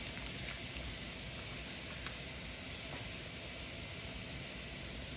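Ribeye steak searing on a hot cast-iron grill pan over medium-high heat, a steady sizzle with a faint pop about two seconds in.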